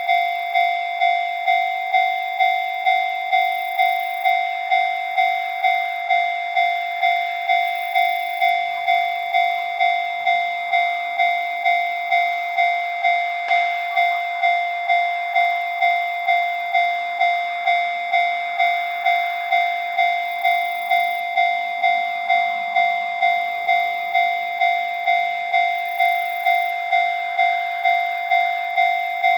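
Japanese railway level-crossing alarm ringing its bell-like 'kan-kan' warning tone steadily, about two strikes a second, each ringing and fading before the next.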